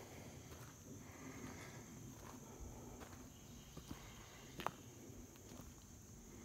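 Faint footsteps on a dirt and pine-needle forest path, with a sharp click a little past halfway.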